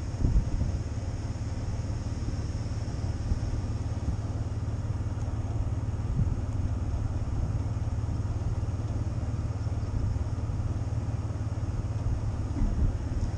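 Jeep driving slowly over a snow-covered field: a steady low rumble of engine and tyres, with a few brief knocks.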